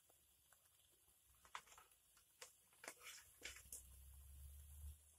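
Near silence with faint, scattered pops and crackles from chicken simmering in a thick sauce in a wok over a wood fire. A faint low rumble comes in after about three and a half seconds.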